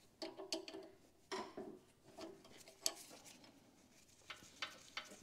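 A half-inch wrench working the bolts on a hydraulic pump's mounting flange: scattered light metal clinks and ticks, a handful of separate taps with short gaps between them.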